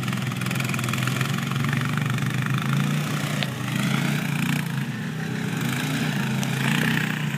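Honda Foreman ATVs' single-cylinder four-stroke engines running under load as they churn in circles through deep sand, the engine note swelling and easing a little.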